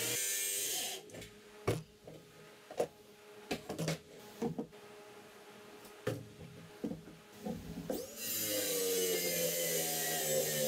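Cordless circular saw cutting through plywood, stopping about a second in. Then a run of sharp knocks and clatter as the saw is set down and the level is moved across the sheet. About eight seconds in, the saw spins up with a rising whine and cuts the plywood again.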